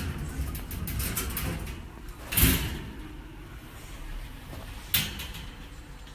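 A macaque clambering on a wire bird cage, the cage rattling, with two sharp clanks: a louder one about two and a half seconds in and a shorter one about five seconds in.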